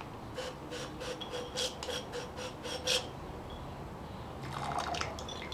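Small glass laboratory beakers handled in rubber gloves: a quick series of short, ringing glassy squeaks and clinks. About four and a half seconds in, liquid trickles from one beaker into another as the cooled nitric acid is poured off the gold.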